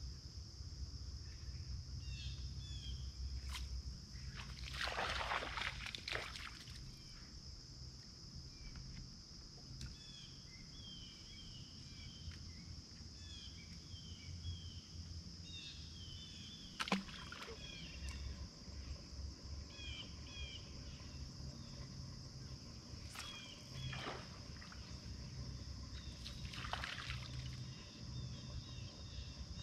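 Evening lakeside ambience: a steady high drone of crickets and other insects, scattered short bird chirps, and a low rumble underneath. A few brief whooshes break in, the largest about five seconds in.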